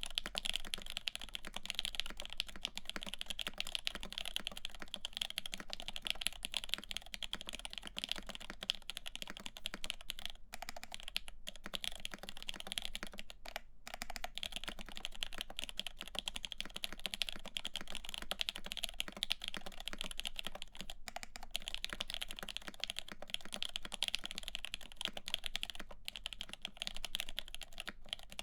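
Continuous typing on a CAKE60 mechanical keyboard with lubed Lavender switches, an FR4 plate and GMK keycaps: a dense, fast stream of keystrokes, with a few brief pauses around the middle.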